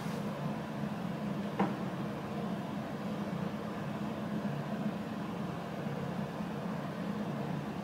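Steady low hum with a faint hiss of room background noise, and one brief soft tap about a second and a half in.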